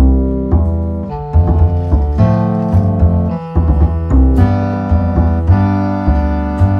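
Background music: piano over a bass line, the bass notes changing about twice a second.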